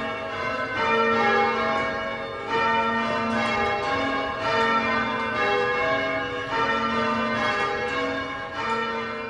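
Truro Cathedral's peal of church bells, cast in 1910 by John Taylor and Company, being rung in changes. The strikes follow one another in a steady, even rhythm and overlap as each bell rings on.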